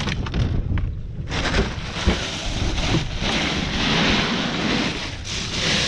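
Wind buffeting the microphone over the rush of water from a boat running at speed, surging up and down.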